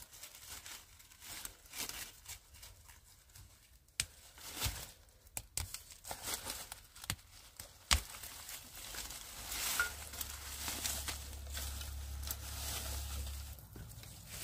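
Irregular rustling and tearing, with a few sharp clicks, the loudest about four and eight seconds in, and a low hum for a few seconds near the end.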